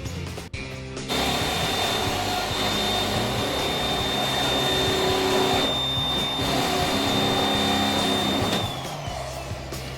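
An electric motor starts suddenly about a second in and runs steadily with a high whine for about seven seconds, then winds down with a falling whine, over background music.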